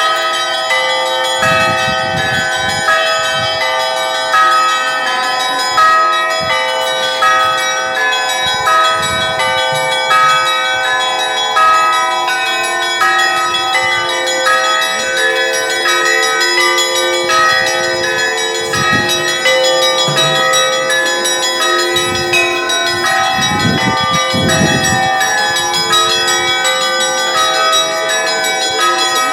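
Russian Orthodox church bells ringing in a continuous peal: several bells of different pitches struck again and again, about once a second, over a steady ring of overlapping tones.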